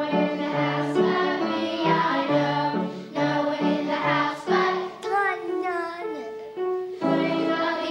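A group of young children singing a song together, holding notes and stepping from pitch to pitch.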